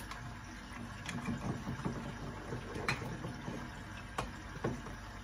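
Sausages cooking in a little oil and water in a covered frying pan, bubbling and crackling under the glass lid. A few sharp clicks and knocks from items being handled on the kitchen counter, one about a second in and others near three and four seconds.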